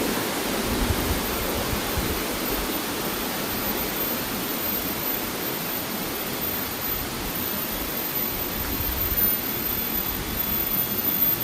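Steady rush of water, an even noise with no breaks.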